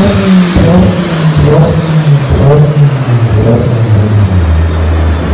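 Mazda RX-7 FD's twin-rotor rotary engine on a dyno, its revs falling away after a high-rpm pull with an uneven, stuttering note. It settles into a steady idle about four seconds in.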